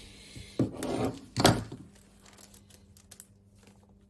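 Brake caliper parts being handled on a workbench while the old retaining pin and clip are worked free. There are two short, loud scraping knocks in the first second and a half, then only faint small clicks.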